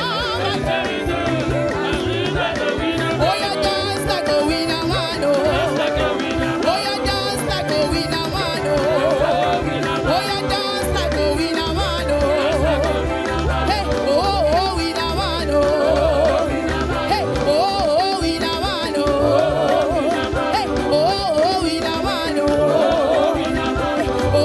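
Live praise band music: drums keeping a steady beat under a bass line, with a wavering lead melody repeating in short phrases and no words sung.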